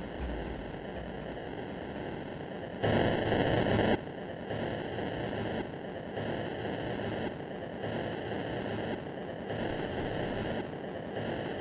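Experimental electronic soundtrack of dense static-like noise, with a louder surge of noise about three seconds in that lasts around a second. The hiss then pulses at a slow, even beat, about once every second and a half.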